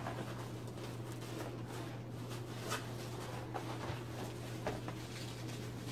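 Rustling and light knocks of packaging being rummaged through in a cardboard box, over a steady low hum.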